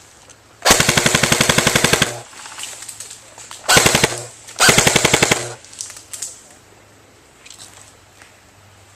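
JG M4 electric airsoft rifle firing on full auto: three bursts of rapid, evenly spaced shots with the gearbox motor humming under them, the first about a second and a half long and two shorter bursts a few seconds later.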